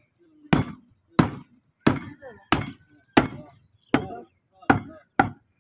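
Butcher's meat cleaver chopping into a slab of beef on a round wooden log block: eight strikes about two-thirds of a second apart, the last two closer together, each a sharp chop with a short thud into the wood.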